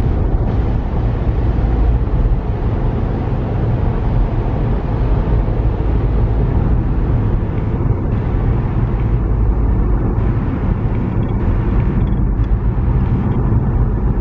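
Steady road rumble of a car driving along an expressway, heard from the moving car, with traffic alongside.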